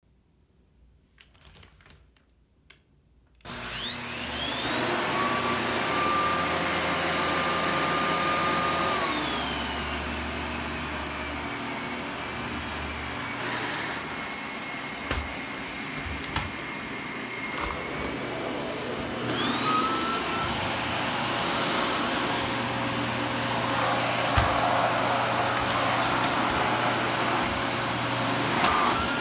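Hitachi CV-PU20 vacuum cleaner switched on after a few faint clicks, its motor spinning up about three seconds in with a high, crying whine over the rush of air. The motor slows and the whine drops in pitch about nine seconds in, then speeds up again with the whine rising near twenty seconds. The whine is an abnormal noise that replacing the filters has not cured; its cause is unknown.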